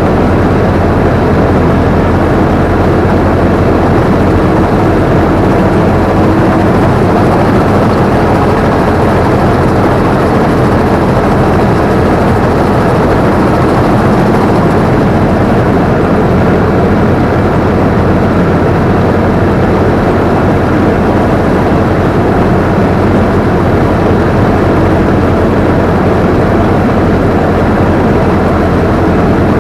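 Combine harvester running steadily: a loud, unbroken engine drone mixed with the rush of the threshing machinery, heard close up from the operator's position.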